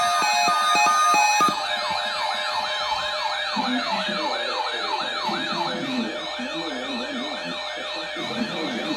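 Electronic siren sounding. It starts on a stepped alternating tone, then about a second and a half in switches to a fast rising-and-falling wail of about three sweeps a second. A lower, slower wavering tone joins near the middle.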